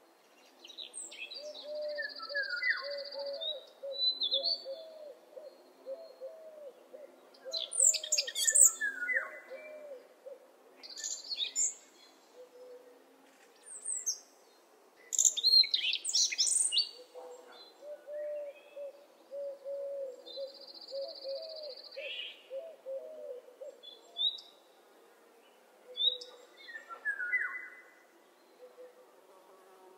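Morning birdsong from several birds: scattered high chirps, whistles and trills, over two long runs of a low note repeated several times a second.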